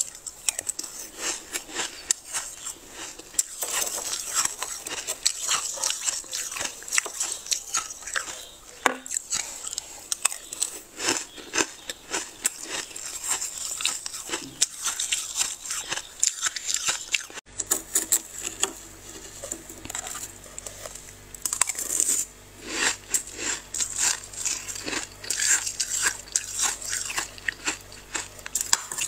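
Freezer frost being scraped off the freezer wall: dense, fast crunching and crackling of packed ice crystals. The sound breaks off sharply about 17 seconds in and resumes, now with a steady low hum underneath.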